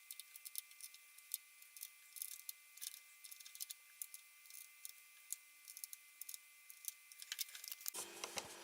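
Faint, scattered small clicks and taps of brush-cutter parts being handled and fitted together during assembly.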